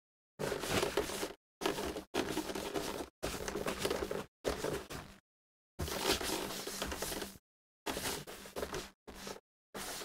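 A crumpled paper wipe rubbed back and forth across the glass screen of an HP all-in-one PC. It comes as a run of about nine rubbing strokes, each up to a second and a half long, with brief gaps between.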